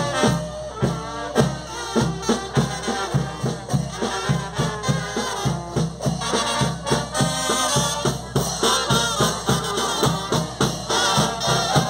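Brass band music with a steady drum beat.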